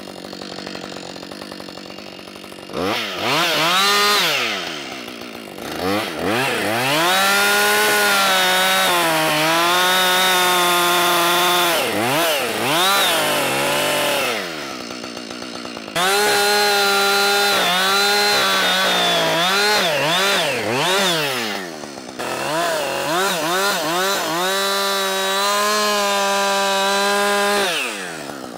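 Two-stroke chainsaw cutting a log: after a few short revs, it is held at full throttle in three long runs, its pitch sagging slightly at times under load. The revs drop between the runs and fall away near the end.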